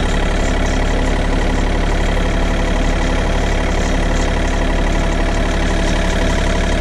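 Tractor engine running at a steady, even pitch while pulling a vibrocultivator, a spring-tine cultivator, through the soil.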